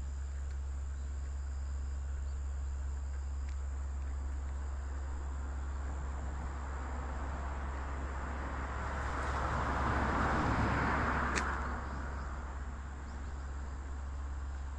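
A road vehicle passing over the level crossing: a rush of noise that swells and fades over about three seconds, with one sharp click at its loudest, about two-thirds of the way in. Insects trill steadily throughout over a constant low hum.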